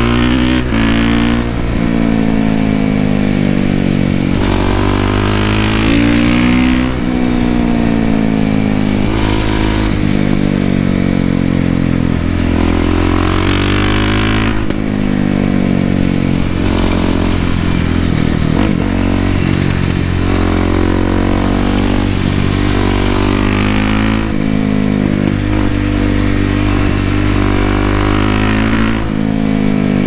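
2013 Suzuki RM-Z450 supermoto's 450 cc single-cylinder four-stroke engine ridden hard, heard from a microphone on the rider's helmet. The engine note climbs through the revs and drops back again and again, at each gear change or throttle roll-off.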